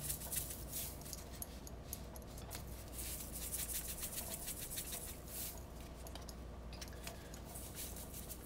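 Spice shaker being shaken over a pot, the dry seasoning rattling inside it in several bursts of quick shakes.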